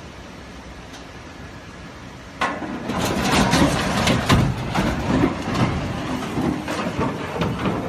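A sudden heavy crash about two and a half seconds in, then a dense run of knocks, bangs and rumbling that goes on to the end. This fits a truck loaded with an excavator crashing on a steel truss bridge. Before the crash there is only a steady low noise.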